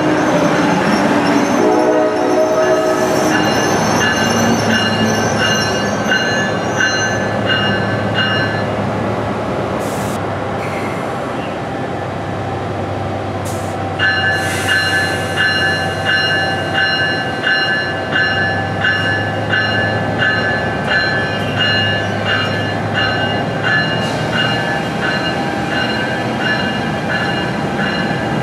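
NJ Transit Multilevel coaches rolling past slowly behind an ALP-45DP locomotive, whose horn chord trails off in the first couple of seconds. Over the rolling noise a grade-crossing warning bell rings about twice a second, breaks off for a few seconds near the middle, then starts again.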